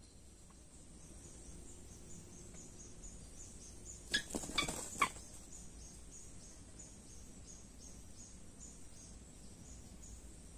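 Insect chirping steadily with high, rapid pulses, about three a second. A brief cluster of sharp clicks and knocks comes about four seconds in.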